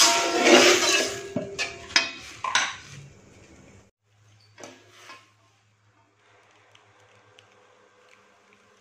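Metal spatula stirring in an aluminium wok, scraping and knocking against the pan with several sharp clinks, over a hiss from the freshly watered pan, for about the first three seconds. After that only a faint low hum and a few soft ticks remain.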